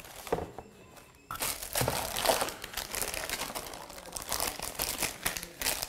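Clear plastic packaging bag crinkling as it is handled and pulled open, starting about a second in as a dense, irregular crackle.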